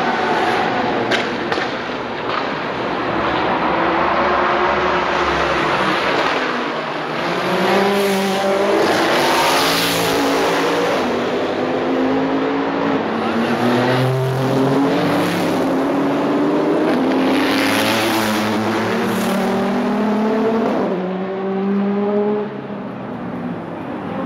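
Several IMSA race cars, prototypes and GT cars, accelerating past one after another on a street circuit. Their engines climb in pitch through the gears with quick upshifts.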